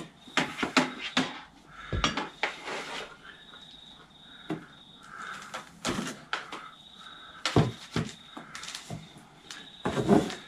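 Handling noise from a long coiled Starlink cable being unwound: irregular clicks, knocks and rustles in clusters, the loudest about two seconds in, near eight seconds and near the end.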